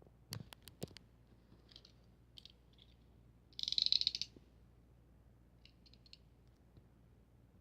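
Handling noises during an unboxing: a few sharp clicks in the first second, faint rustles, then a short scraping rustle about three and a half seconds in.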